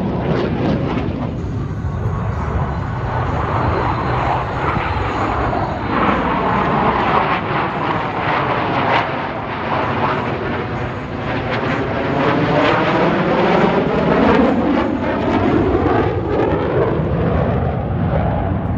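Loud, continuous jet roar of Blue Angels F/A-18 Super Hornets flying past. The tone swirls and sweeps up and down as the jets move across the sky.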